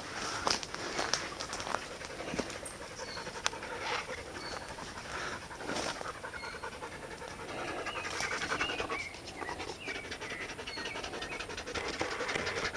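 Dog panting, with rustling and a few short high chirps.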